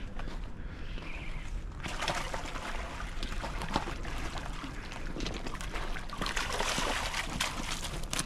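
Splashing and scraping as a hooked striped bass is reeled in and landed on a rocky bank, with many short clicks and scuffs on the rocks. It starts about two seconds in and runs on busily.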